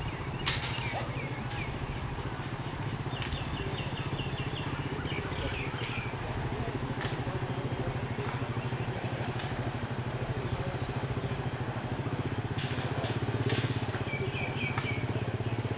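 A motor running steadily with a low hum, while a bird calls in two quick runs of high chirping notes, about three seconds in and again near the end.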